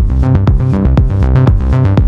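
Electronic dance music with a steady, fast beat of about four strokes a second over held synth notes.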